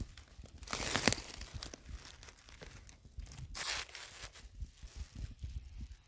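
Dry leaf litter crackling and rustling under a hand in two short bursts, about a second in and just past halfway, as a porcini mushroom is grasped and pulled from the forest floor.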